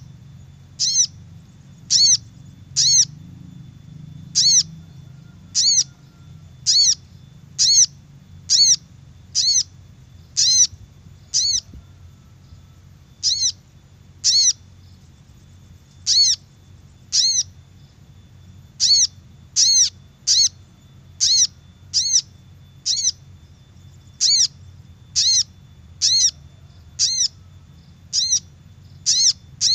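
Little spiderhunter (sogok ontong) giving a short, sharp call note over and over, about once a second, with a couple of brief pauses. This is a looped lure call used to attract wild birds of its kind.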